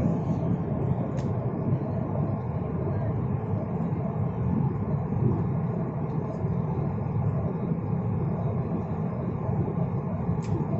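Steady low rush of a jet airliner's cabin noise in cruise flight: engine and airflow noise, even and unchanging.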